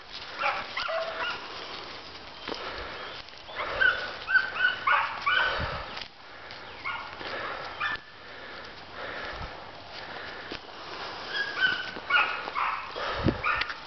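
Hunting dogs yipping and baying in short, rapid calls as they chase a cottontail rabbit, the calls coming in two bouts, one a few seconds in and another near the end.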